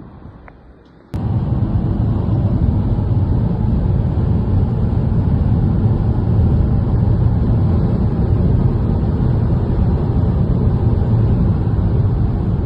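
Faint wind for about a second, then a sudden cut to steady road noise heard inside a car cruising at highway speed: a low, even rumble of tyres and engine.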